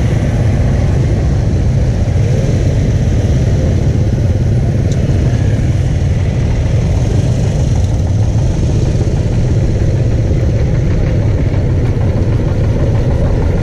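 Steady, loud low rumble of a vehicle engine running.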